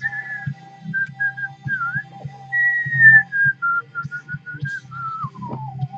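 A person whistling a wandering tune: clear single notes that step and slide between high and middle pitch, with a falling glide about five seconds in. A low steady hum and faint taps run underneath.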